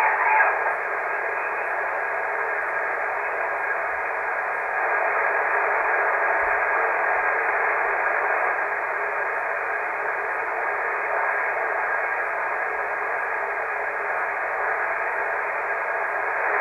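Steady hiss of band noise from an HF transceiver's speaker while it is tuned across the 20 m amateur band. No stations are heard: an empty, inactive stretch of the band.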